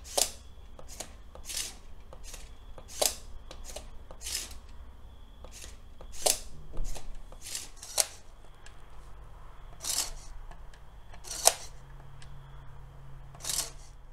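Irregular sharp plastic clicks from a motorized LEGO Technic truck's crane arms working, one or two a second. A faint, steady low hum from its electric motors comes in around the middle and again in the last few seconds.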